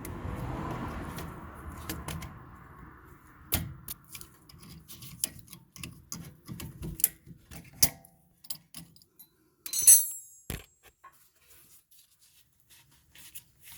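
Hand tools and metal suspension parts being worked: a rubbing, scraping noise for the first few seconds, then scattered metallic clicks and clinks, with one loud ringing clank about ten seconds in.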